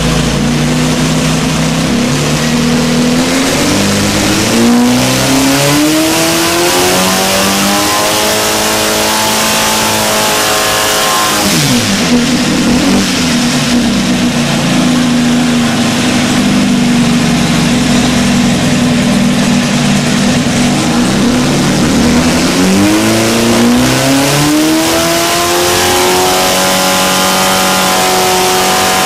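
Air-cooled Volkswagen Type 1 flat-four with twin carburettors running on an engine dyno under full load, a test pull on main jets raised from 175 to 190. The revs climb steadily for about ten seconds, drop sharply, hold steady, then climb again and hold high near the end.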